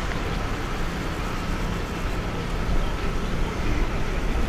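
Steady jet engine rumble of an Airbus A330-200 airliner climbing away after takeoff, with a faint steady whine.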